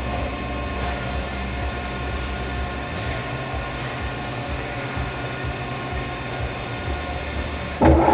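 Steady machine-shop hum while the work is stopped. About eight seconds in, the Mazak manual lathe's spindle is engaged and the 18-inch stainless workpiece spins up, with a sudden, much louder, steady whine from the lathe's drive.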